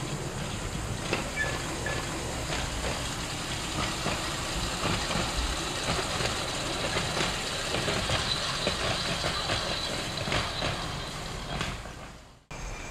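Quarter-scale electric streetcar rolling along its track, a steady rumble with many irregular wheel clicks over the rails. The sound fades away near the end.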